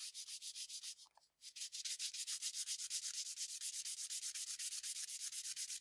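Folded 800-grit sandpaper rubbed by hand in rapid back-and-forth strokes over a car door molding, a high scratchy hiss with each stroke. It is cutting down a paint run to level the excess paint with the surface. The strokes stop briefly about a second in, then go on steadily.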